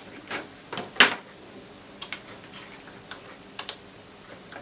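Irregular small clicks and taps of circuit boards being handled and pressed into the option slot of a West Plus Series PID controller, the sharpest click about a second in.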